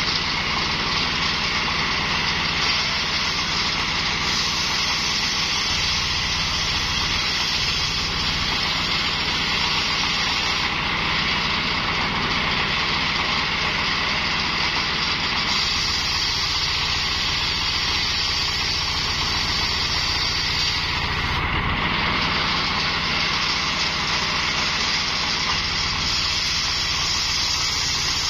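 Homemade circular sawbench driven by a stationary engine, running steadily under load while its blade rips a coconut palm log into planks. The engine's low pulsing runs under the hiss and whine of the blade cutting.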